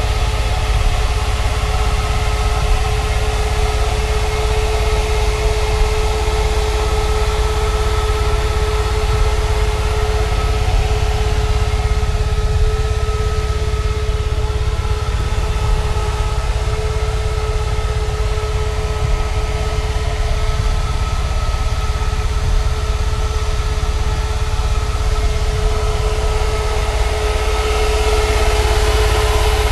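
Steady hum of an idling vehicle engine together with the amplifier rack's cooling blower fans, with a low rumble and a constant whine.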